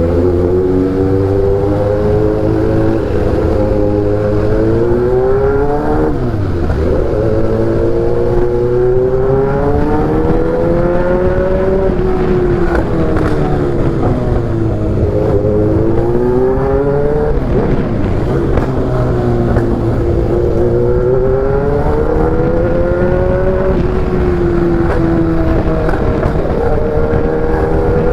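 Kawasaki Z800's inline-four engine through an Austin Racing aftermarket exhaust, ridden: the engine note climbs steadily under acceleration, then drops sharply and climbs again, several times over, as the bike accelerates, changes gear and backs off.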